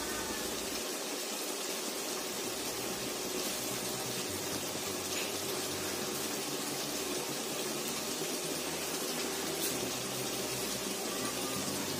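Chicken curry cooking in an aluminium kadai on a gas stove, a steady sizzle and bubble of the thick masala.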